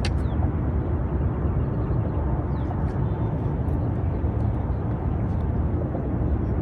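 Steady low rumbling noise with no clear pitch, with a few faint high ticks.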